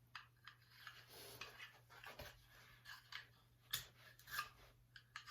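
Faint, irregular small clicks and light scrapes from a small axe head and its wooden haft being handled.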